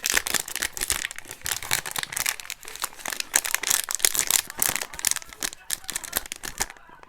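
Foil booster-pack wrapper crinkling and crackling as it is handled, a dense run of sharp crackles that dies down near the end.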